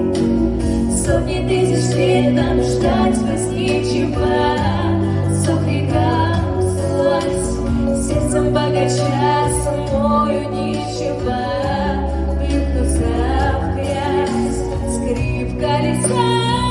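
Two girls singing a pop song as a duet over instrumental accompaniment with steady bass notes.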